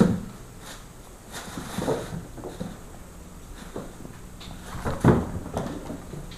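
A plastic bag crinkling and scraping across a bare wooden floor as a cat pulls at it, in irregular bursts with soft knocks, the loudest right at the start and about five seconds in.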